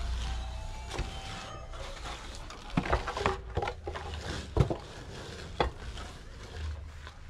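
Concrete blocks being handled and set down on a mortar-topped masonry wall: a series of sharp knocks and scrapes, loudest about four and a half seconds in, over a low rumble.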